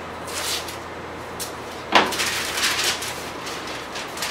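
Masking tape pulled off its roll in a few rasping pulls; the longest starts sharply about two seconds in and runs about a second.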